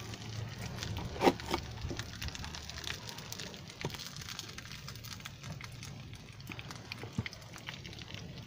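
Scattered clicks and crackles from a small wood fire and from bamboo chopsticks and skewers being handled over banana leaves, with one sharp click about a second in.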